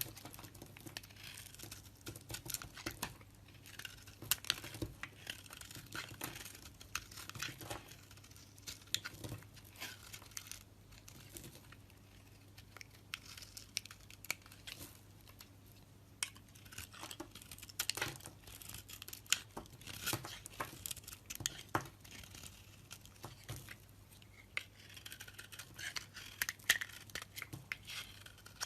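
Bar soap being chopped with a knife: irregular crisp cracks and crunches as the blade breaks through the dry soap, some much sharper than others.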